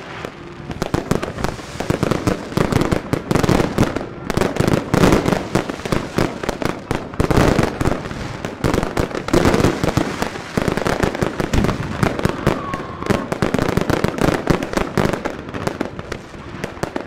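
Fireworks and firecrackers going off all around in a dense, unbroken barrage of bangs and crackling.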